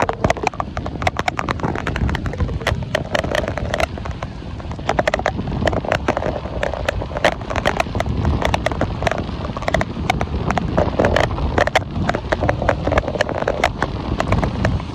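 Heavy rain beating on a moving car and the microphone: a dense, irregular patter of sharp hits over the steady low rumble of the vehicle driving on a wet road.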